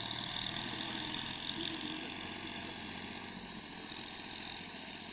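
Excavator's diesel engine running steadily, slowly getting quieter.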